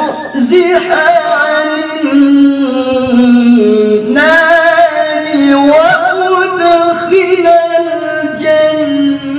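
A man's solo Quran recitation (tilawah) sung into a microphone: one voice holding long melodic notes with wavering ornaments, a brief pause about four seconds in, then a new phrase starting higher.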